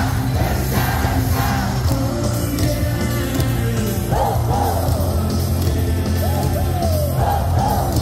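Baseball stadium cheer music played over the loudspeakers with a steady bass beat, the crowd singing and yelling along; voices swell about halfway through and again near the end.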